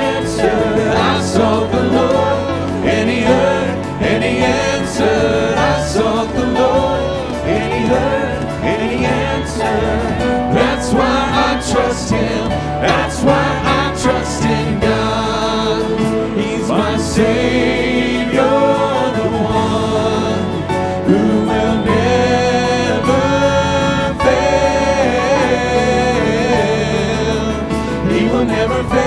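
Gospel worship song: a group of voices singing together over instrumental band accompaniment.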